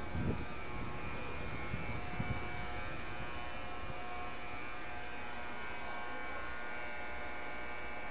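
Korail 8500-series electric locomotive giving off a steady electric hum made of several held tones as it pulls out. A low thump comes just after the start and another about two seconds in.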